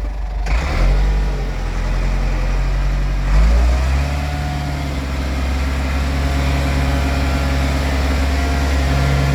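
Ford 5610 tractor's four-cylinder diesel engine running as the tractor pulls away in fifth gear, high range. The engine note rises about three and a half seconds in.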